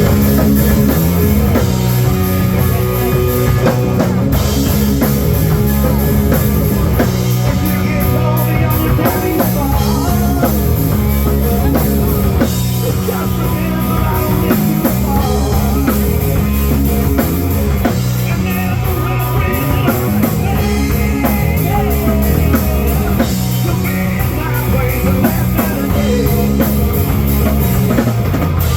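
Rock band playing a hard rock song, with drum kit and electric guitar over a heavy low end, loud and without a break.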